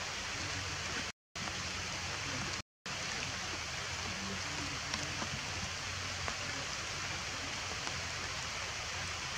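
Steady rain falling on forest foliage, an even hiss with a few faint drop ticks. The sound cuts out to silence twice, briefly, in the first three seconds.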